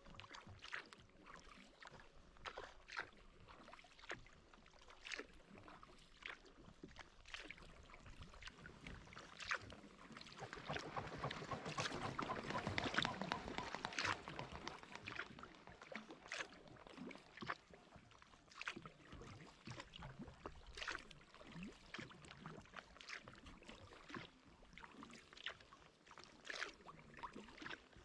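Kayak paddle strokes: small splashes and drips about once a second on calm water. Near the middle a louder rush of splashing swells up and dies away as a swan runs across the water to take off.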